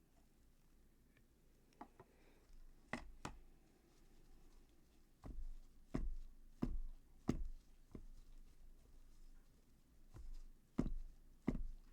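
A series of irregular knocks and thumps, eight or so, from plaster molds and tools being handled and set down on a table while plaster is worked into the molds. The knocks start a few seconds in and come in clusters.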